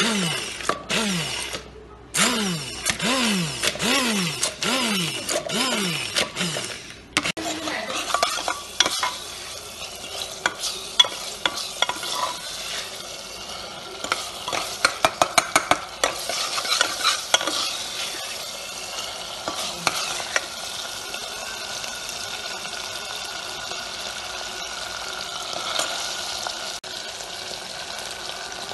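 An electric hand blender pulsed on and off about once a second in an onion-and-spice mixture, its motor whine rising and falling each time, for about the first seven seconds. Then the blended paste fries and sizzles in hot oil while a ladle stirs it with quick clicks against the pot, settling into a steady sizzle.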